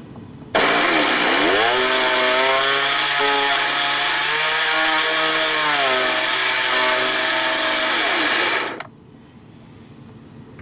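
Electric jet-board motor spinning the jet-unit drive shaft through a plum (jaw) coupler, run up while the motor is held against its mount before the bolts are tightened, to judge the alignment by its sound. It starts suddenly: a whine over a loud hiss, dipping and rising in pitch as the speed changes, then holding steady before winding down and stopping about nine seconds in.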